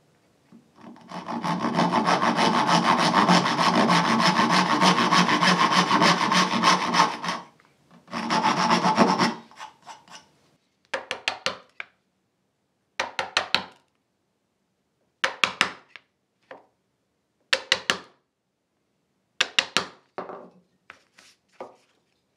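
Dovetail back saw cutting into a Kiaat hardwood board held in a vise, in steady rhythmic strokes for about six seconds, then a shorter run of strokes after a brief pause. Later come short bursts of a few scratching strokes about every two seconds, as a pointed marking tool scores lines on the board.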